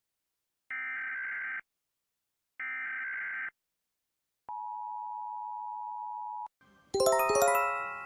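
Emergency alert broadcast tones: two short buzzy data bursts about a second apart (the digital header of an emergency alert), then a steady beep held for about two seconds. Near the end a bright run of chime notes begins, ringing and fading.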